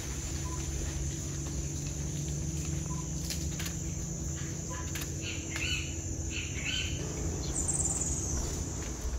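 Tropical forest ambience: a steady high-pitched insect drone with birds chirping several times in the middle, over a low steady rumble.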